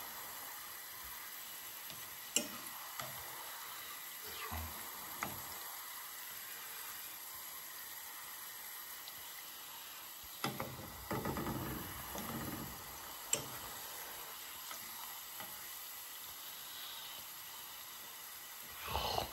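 Sliced garlic frying in oil in a stainless steel saucepan: a steady sizzle, with a few sharp taps of chopsticks against the pan as the chips are stirred.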